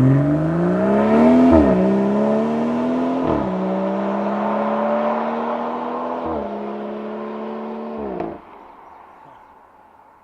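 BMW 440i's turbocharged 3.0-litre straight-six with the M Performance exhaust accelerating hard, upshifting four times, each shift a sudden drop in pitch followed by a climb. The note fades as the car pulls away and falls off sharply after the last shift.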